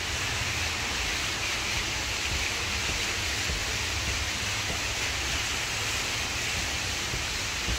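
Steady rushing of water falling in an indoor atrium waterfall, an even, unbroken wash of sound.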